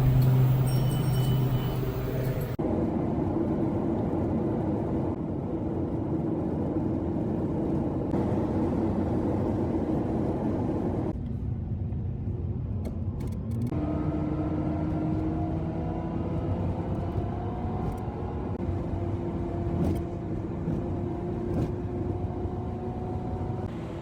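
A car driving on the highway: a steady engine drone over road and tyre noise, its pitch creeping slowly upward in stretches. The sound changes abruptly a few times.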